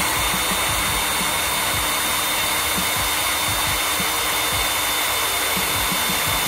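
Power drill running steadily at one speed with a high whine, spinning a Wheeler Delta Series receiver lapping tool with lapping compound against the face of an AR-15 upper receiver to true it.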